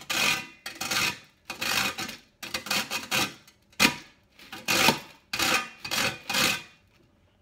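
Dry toasted bread being rubbed down a stainless steel box grater, about a dozen rasping strokes in quick succession, that stop near the end.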